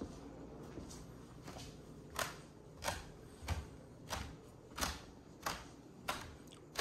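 Footsteps climbing a wooden staircase with carpeted treads: steady, evenly paced thuds, about three every two seconds, becoming much louder about two seconds in.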